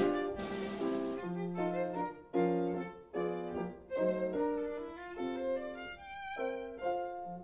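Musical score accompanying a silent film: a melody in short phrases of held notes over chords, with brief breaks between phrases.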